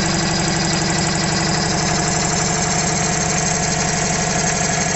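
Vintage Motivair twin-cylinder air compressor, built from a Frigidaire refrigeration compressor pump driven by a 1/4 hp single-phase motor, running steadily with a fast, even chugging as it pumps the tank up toward pressure.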